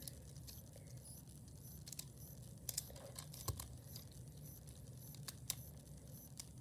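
Faint, scattered clicks of plastic fidget roller rings being handled and knocked against one another.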